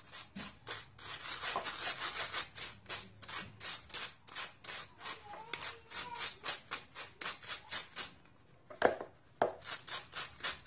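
Granulated sugar scraped and rubbed through a wire-mesh sieve with a spatula, in fast, even strokes about five a second, to break up lumps in the sugar. The scraping stops near the end and is followed by two sharp taps.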